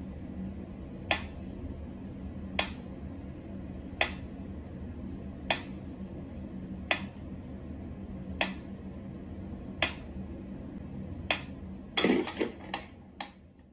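Sharp single clicks or taps, evenly spaced about one every second and a half, over a steady low hum, ending in a quick flurry of several clicks near the end.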